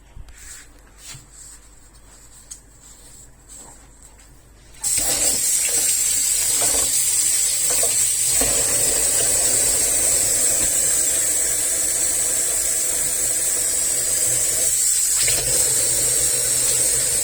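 A few light clicks, then about five seconds in the steam wand of a Klarstein Espressionata Gusto espresso machine opens with a sudden, loud, steady hiss of steam.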